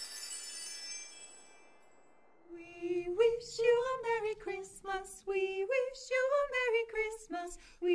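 High bell-like ringing fades out over the first two seconds, then after a brief hush a group of carolers starts singing a Christmas carol a cappella, women's voices carrying the melody.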